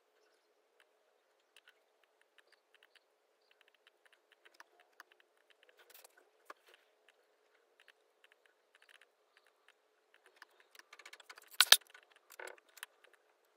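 Keys and touchpad of a laptop keyboard clicking: sparse, faint taps at first, then a quick flurry of key presses near the end with one sharp, loud knock among them. A faint steady hum runs underneath.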